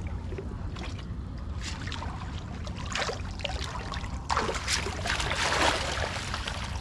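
Water trickling and splashing, with a louder stretch of splashing about four to five and a half seconds in, over a steady low rumble.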